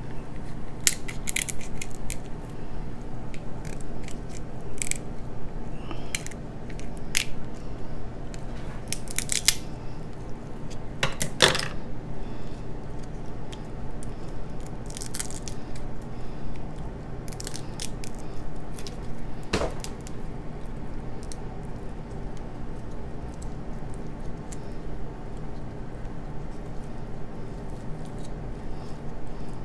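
Kitchen shears snipping and cracking through king crab leg shell: a string of sharp snaps and crunches, the loudest about eleven seconds in, fewer and softer shell cracks later on, over a steady low hum.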